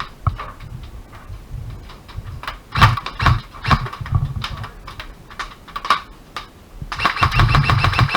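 Airsoft guns firing: scattered single sharp cracks, then a rapid run of shots starting about seven seconds in.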